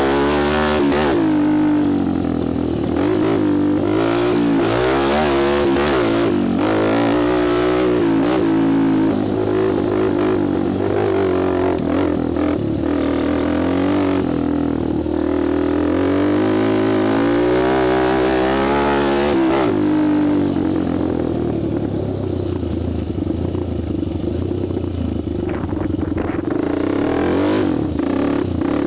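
Honda TRX250X quad's single-cylinder four-stroke engine and exhaust, revving up and down again and again as it is ridden. About 20 seconds in, it settles to steadier, lower revs.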